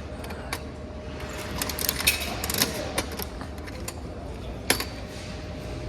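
Coin-operated toy vending machine being worked by hand: a series of ratcheting clicks and clacks from the crank mechanism, with a sharper clack near the end.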